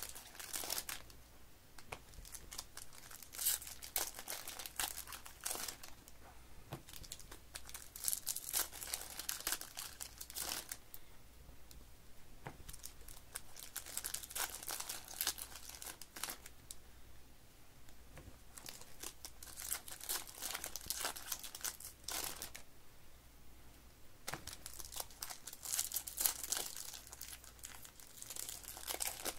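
Foil wrappers of Topps baseball card packs being torn open and crinkled by hand, in irregular bursts of crackling with short lulls between them.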